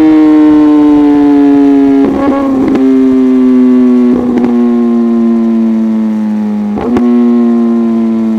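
Suzuki GSX-R1000R's inline-four engine through an M4 full exhaust system, running high in the revs with its pitch slowly falling, as on a closed throttle. Short bursts of exhaust crackling break in about two, four and seven seconds in.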